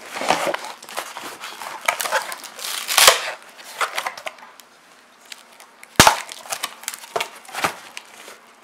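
Cardboard box and packing material being handled as a boxed subwoofer is lifted out: rustling and scraping with scattered clicks, and sharp knocks about three and six seconds in, the one at six the loudest.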